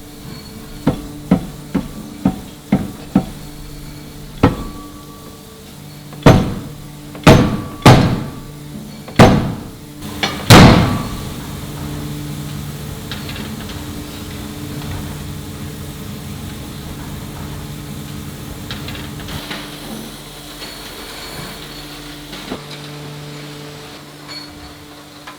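Metal forging blows: a quick run of lighter strikes about two a second, then five heavy blows, each with a ringing decay, over a steady machine hum.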